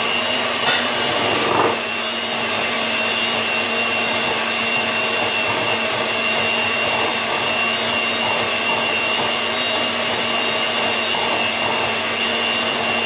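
Electric mixer running on low with its beaters whipping thickened cream toward stiff peaks: a steady motor whine, with a couple of knocks in the first two seconds.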